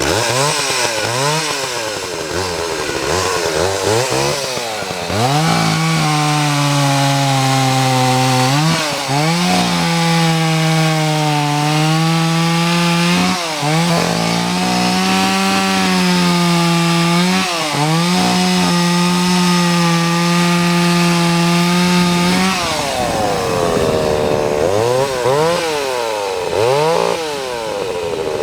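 Vintage Homelite 330 two-stroke chainsaw running: the throttle is blipped up and down several times, then held at high speed for about seventeen seconds with three brief dips. It then drops back and is blipped a few more times before settling near the end.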